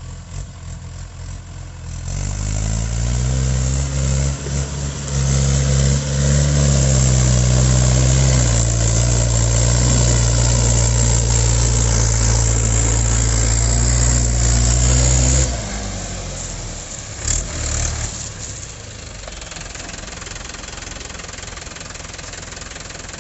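Mahindra 575 DI tractor's four-cylinder diesel engine revving up about two seconds in and running hard and steady as it hauls a heavily loaded sugarcane trolley. About two-thirds of the way through it drops suddenly to a quieter, steady run.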